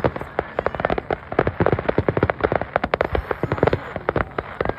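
Fireworks crackling overhead: a dense, irregular run of many sharp pops, several every second, with heavier low thuds mixed in.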